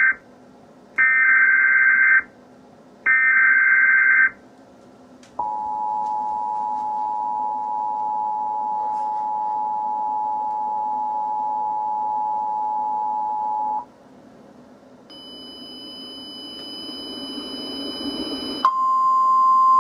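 Emergency Alert System tones for a tornado warning: the tail of one SAME header data burst and then two more, each about a second long, followed by the two-tone EAS attention signal held steady for about eight seconds. After a short pause come a few seconds of high steady tones over a rising hiss, then a single steady warning tone starts near the end.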